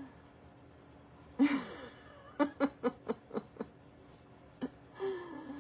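A woman laughing: a loud voiced outburst, then a quick run of about six short laughing bursts, and another brief vocal sound near the end.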